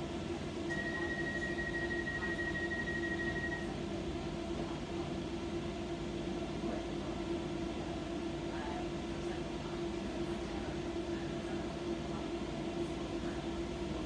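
Docklands Light Railway train running along the track, heard from inside the car: a steady rumble with a constant low hum. A thin high tone is held for about three seconds near the start.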